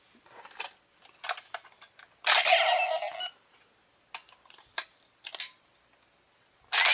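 Plastic clicks from a hand-held electronic Power Rangers Gosei Morpher toy being handled, with a loud electronic sound effect from the toy lasting about a second, a couple of seconds in.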